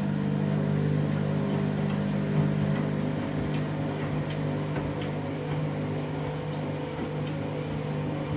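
Washing machine spinning an out-of-balance bedding load: a steady motor hum with a few light knocks between about two and five seconds in.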